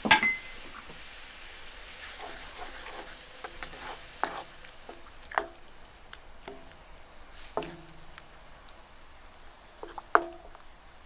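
Wooden spatula stirring a simmering coconut-milk sauce in a cast-iron skillet, with a steady low sizzle and several sharp knocks of the spatula against the pan, the loudest at the very start and about ten seconds in.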